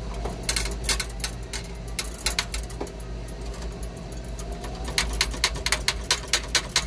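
Light metallic clicks and taps as thin copper refrigerant tubing is handled and bent by hand at a freezer's evaporator coil, scattered at first, then a quick run of about five clicks a second from about five seconds in, over a steady low hum.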